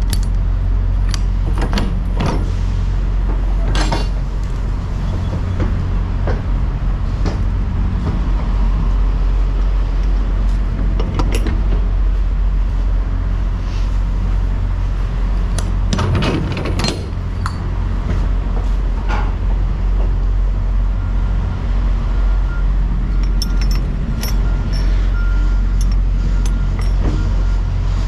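Metal latches and hinges clanking and knocking as a semi-trailer's rear swing doors are unlatched and swung open, over a steady low engine rumble.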